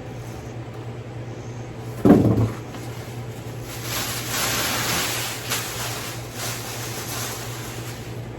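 Cardboard box and packing being handled: one heavy thump about two seconds in, then a few seconds of rustling and scraping, over the steady hum of a fan.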